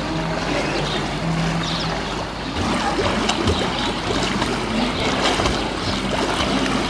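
Swimming pool water splashing and lapping as a swimmer kicks and moves at the pool edge, heard as a steady rushing haze.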